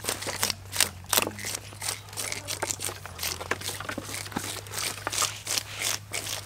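Knives and scrapers scraping the scales off large whole fish, several people at once: a quick, irregular run of short scraping strokes.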